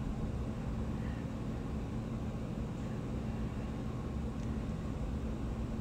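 Steady low hum with a hiss: constant mechanical background noise in the room, with no distinct handling sounds standing out.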